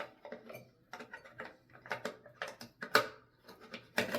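Irregular plastic clicks and taps from the parts of a toilet fill valve being handled and its cover worked back into place, with the sharpest click about three seconds in and a cluster near the end.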